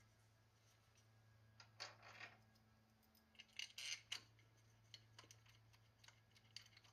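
Near silence with a faint steady low hum, broken by a few faint clicks and rustles about two seconds and four seconds in: a throttle body being handled and set into place on its seal.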